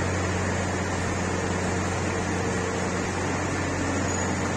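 Shrink-wrap heat tunnel running: the steady whir of its hot-air blower and conveyor motors over a low, constant electric hum.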